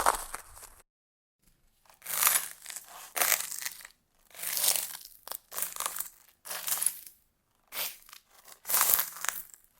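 Footsteps crunching on broken glass: a slow, even walk, one crunching step about every second, after a brief pause near the start.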